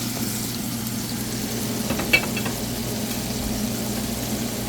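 Ground beef with garlic and onion sizzling steadily in a frying pan, with one short sharp click about two seconds in.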